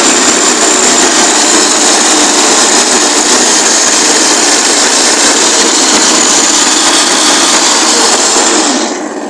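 Engine running fast, driving the Mini Beep's CVT transmission, its belt and pulleys spinning, with a steady high whine over the mechanical din. The sound drops away sharply near the end.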